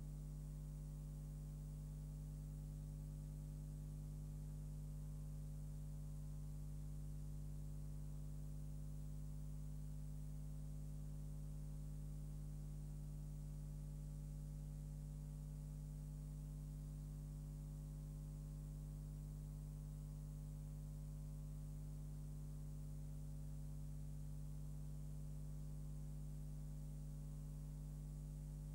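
Steady low electrical hum made of several unchanging tones, with a faint hiss over it: mains hum and noise on an otherwise silent soundtrack, with no sound from the filmed scene.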